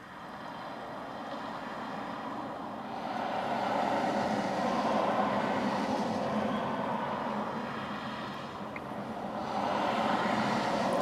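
Road traffic passing on a highway: a steady tyre-and-engine rush that swells twice as vehicles go by, once about four seconds in and again near the end.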